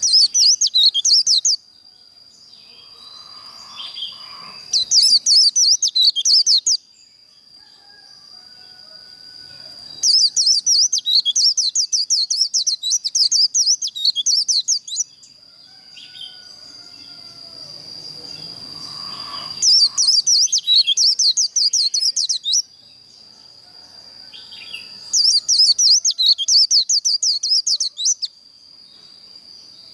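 White-eye (vành khuyên) singing its fast, high 'líu' warble in five bursts of a few seconds each, with short pauses between them. A steady thin high whine runs underneath.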